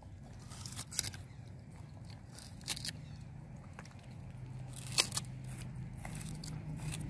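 Young macaques chewing and handling fruit: scattered short, sharp clicks and crackles, about five or six of them. Under them runs a low steady hum that grows a little louder in the second half.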